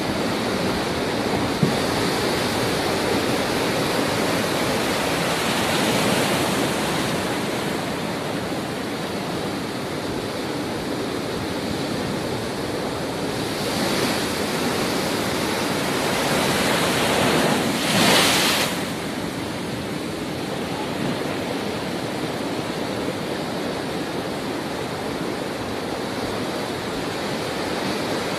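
Heavy storm surf at high tide: large waves breaking and crashing into white water, a continuous rush of water that swells with each wave, the loudest crash about two-thirds of the way through.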